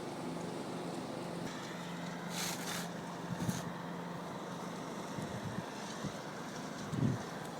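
Steady low background hum, with a brief rustle a little over two seconds in and a few soft knocks, the loudest near the end.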